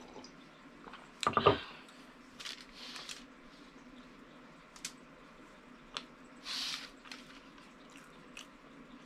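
A ceramic mug set down on a wooden table with a short clunk about a second in, then a few soft rustles and small clicks.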